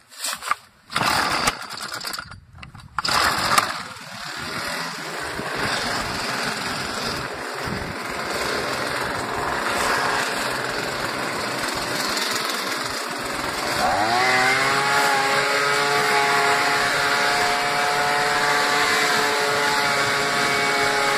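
Two-stroke engine of a Hitachi RB24EAP handheld gas leaf blower running with a steady rush of air, after a few irregular bursts of noise in the first three seconds. About fourteen seconds in it revs up and holds at a higher, steady engine pitch.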